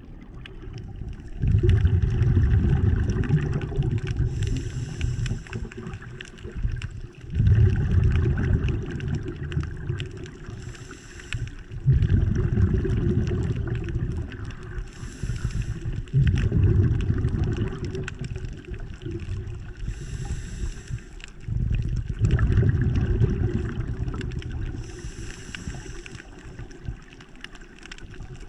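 A scuba diver breathing through a regulator, heard underwater. Each breath is a brief high hiss followed by a long, low rumble of exhaled bubbles, repeating about every five seconds.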